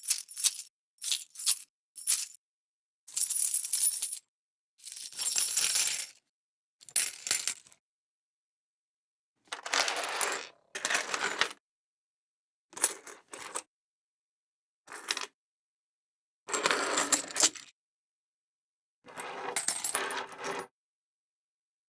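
A series of separate coin sound effects: metal coins dropping onto a hard surface. There are short single clinks at first, then longer bouts of clinking and rattling up to about a second and a half long, with silent gaps between them.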